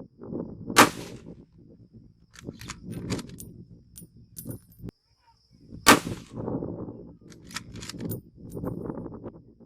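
Two rifle shots from a muzzle-braked Ruger Precision Rifle in .308 Winchester, about five seconds apart, with lighter metallic clicks and clinks between them over a low wind rumble on the microphone.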